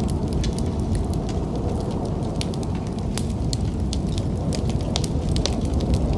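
Wood fire crackling and popping in a fireplace, with irregular sharp pops over a steady low rumble.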